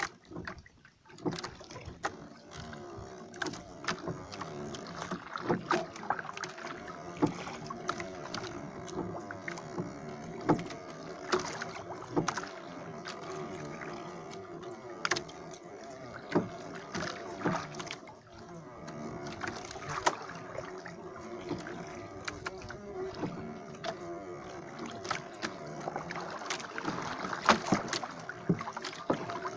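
Irregular knocks and water sounds from a small wooden outrigger fishing boat being worked at sea, over a steady low hum.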